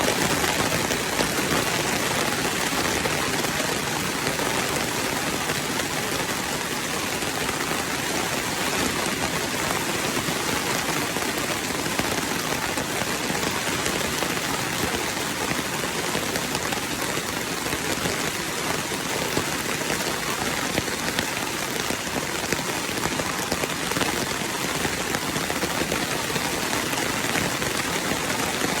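Steady rain falling, an even sound of many drops with no let-up.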